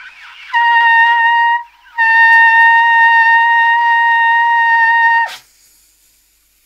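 Trumpet playing a high C with a breathy air attack: a short note of about a second, a brief break, then the same note held about three seconds, dropping off in pitch as it stops.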